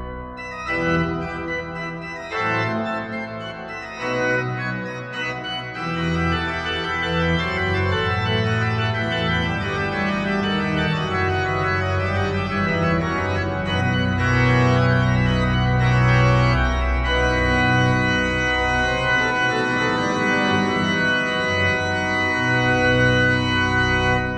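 Organ music: held chords that change every second or two over a deep bass.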